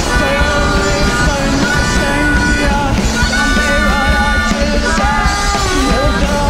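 Loud live experimental band: drums and electronics under a voice singing into a microphone, with wavering pitched lines running over a dense, pulsing low end.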